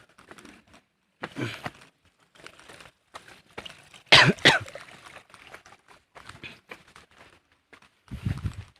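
A person coughing a few times, the loudest cough about halfway through.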